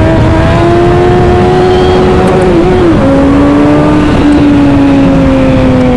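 Suzuki Hayabusa inline-four, breathing through a K&N air filter, pulling hard under acceleration. Its note climbs, drops suddenly about three seconds in, then holds steady and eases slightly lower.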